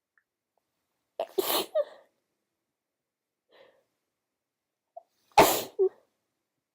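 A woman with a cold sneezing twice, about four seconds apart. Each sneeze is a short, sharp burst with a brief trailing catch of breath, and a faint breath comes between them.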